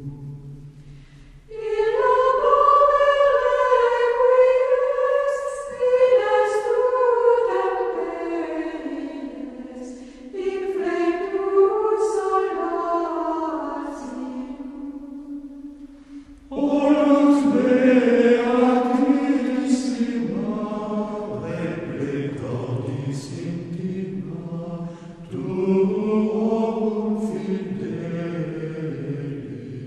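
A choir singing in long, slow phrases, each starting strong and fading away before the next begins.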